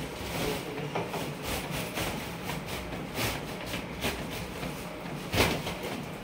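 Epson L3250 EcoTank inkjet printer printing a page: the print head carriage shuttles back and forth with a string of short mechanical clicks over a low running hum as the sheet feeds out, with one louder clunk about five seconds in.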